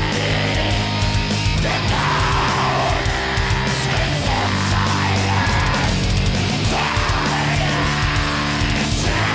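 Black metal band playing live: heavily distorted electric guitars and bass over drums with constant cymbal wash.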